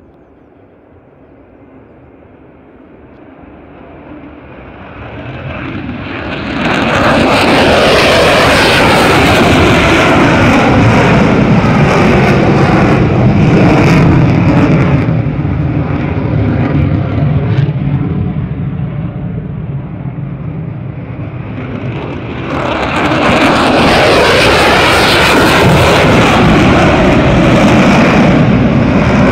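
Military fighter jet engine noise at high power as a jet passes low. It builds over about six seconds to a loud, steady peak with falling pitch sweeps, eases for a few seconds, then swells again to a second loud pass about 23 seconds in.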